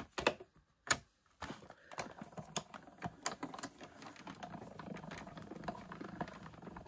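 Hand-cranked Stampin' Up! Cut & Emboss die-cutting machine: a few separate clicks as the plate sandwich is set in, then from about a second and a half in a continuous run of fine clicking and rattling as the crank turns and the plates roll through to die-cut an egg shape from paper.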